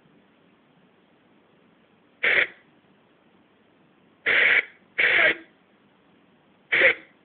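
Four short, sudden bursts of hiss-like noise over a faint steady hiss, the middle two close together.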